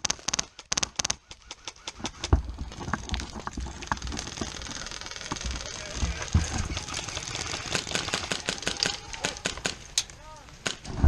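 Airsoft guns firing: quick strings of sharp cracking shots in the first second or so and again in the last few seconds, with movement noise between.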